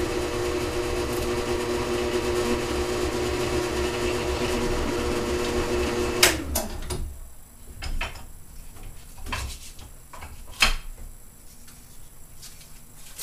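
Electric drill running steadily as a long 3/16-inch bit bores slowly through wooden hinge stock. The motor is switched off about six seconds in and winds down, followed by a few light knocks and clicks of the workpiece and tool being handled.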